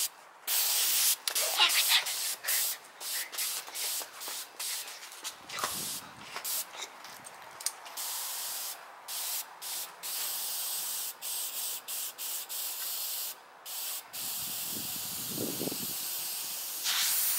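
Compressed air hissing from a blow-gun nozzle on a coiled air hose, let off in many short, irregular on-off bursts with a few longer blasts.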